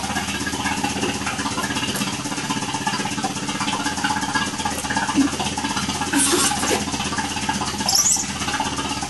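Vacuum pump running steadily with a low mechanical hum, drawing the air out of the vacuum bag over a carbon fiber and epoxy layup. A brief hiss comes about six seconds in.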